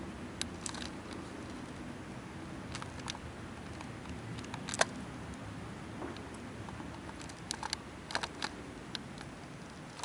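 Handheld camera handling noise: scattered clicks and taps over a steady low outdoor rumble. The loudest is a single sharp click about five seconds in, and a few more come close together near the end.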